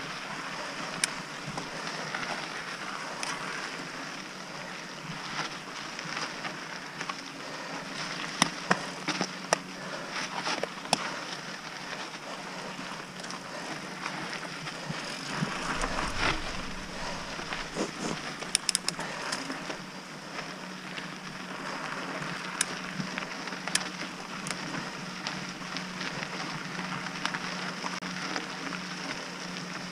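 Cross-country mountain bike rolling over dry dirt singletrack: steady crunch of tyres on loose dirt and small stones, with frequent sharp clicks and rattles from the bike. A gust of wind hits the microphone about sixteen seconds in.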